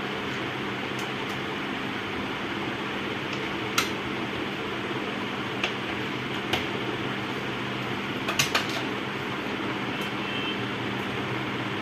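Small sharp clicks of cable connectors and metal parts being handled on an LCD monitor's circuit boards and sheet-metal chassis: three single clicks spread through the first half, then a quick run of three about eight seconds in. A steady fan-like hum runs underneath.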